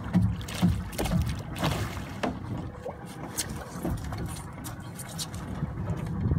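A hooked jurel (yellowtail) being hauled out of the water and into a small open boat: a splash, then irregular knocks and bumps as the fish and tackle strike the hull, over a steady rumble of wind and water.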